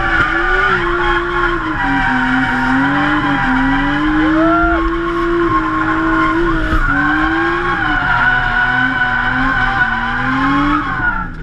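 Drift car's engine held at high revs, heard from inside the cabin, its pitch rising and dipping with the throttle through the slide while the tyres squeal. Near the end the engine note falls away and the level drops.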